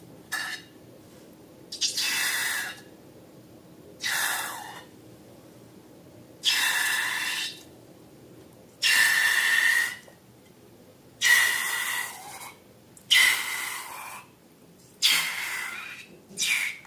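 Repeated short hissing bursts, about eight of them, each half a second to a second long and coming roughly every two seconds, some with a faint squealing tone.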